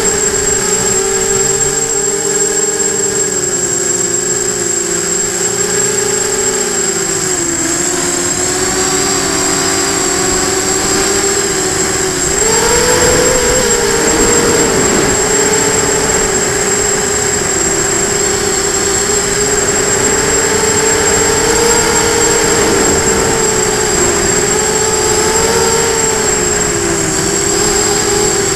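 Hexacopter's electric motors and propellers whining, heard from its onboard camera. The pitch sags and rises as the throttle changes and jumps up about twelve seconds in, over a steady high-pitched tone.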